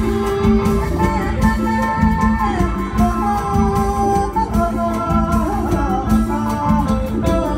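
Live Isan mor lam / luk thung music: a woman singing a long, gliding melody over a band with a steady beat.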